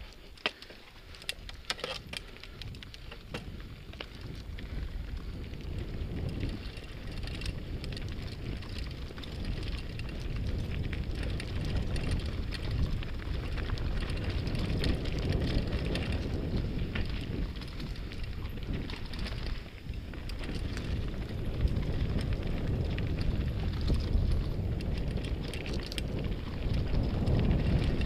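Mountain bike ridden over a dirt and stony trail, heard from an action camera on the bike or rider: tyres crunching over gravel and the bike rattling, under a low wind rumble on the microphone. A few sharp clicks in the first couple of seconds; the rumble grows louder from about ten seconds in.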